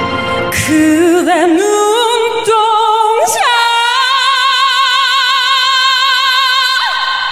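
A woman singing a ballad into a microphone over sparse backing. Her voice climbs in pitch, then holds one long high note with vibrato for about three seconds, and the note breaks off near the end.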